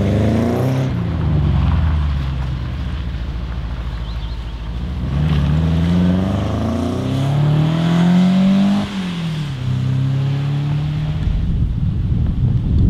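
Saab 96 engine revving hard as the car pulls away, its pitch rising in long sweeps with a sharp drop at a gear change about nine seconds in, then running more steadily near the end.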